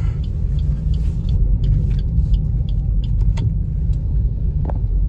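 Steady low rumble of a car's engine and tyres heard from inside the cabin while it rolls slowly, with faint light ticks and one sharper click near the end.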